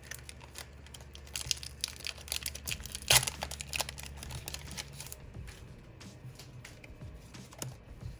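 Foil Pokémon booster pack wrapper crinkling and being torn open, a run of scattered crackles with one sharp, loud crackle about three seconds in.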